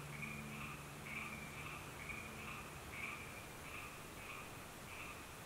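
Faint night-time chorus of frogs chirping steadily, about two short chirps a second.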